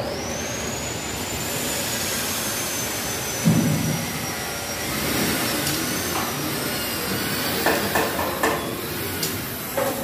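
A small machine motor running steadily with a high whine that climbs in the first second and then slowly sinks in pitch. A dull thud comes about three and a half seconds in, and a few sharp knocks come near the end.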